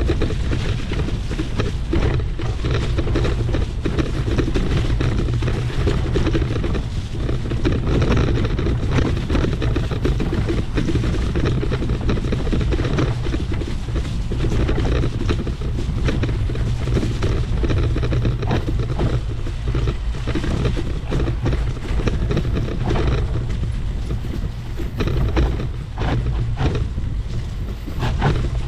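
Steady wind rumble on the microphone while riding a Trek Powerfly 4 electric mountain bike downhill, with frequent knocks and rattles from the bike over rough ground.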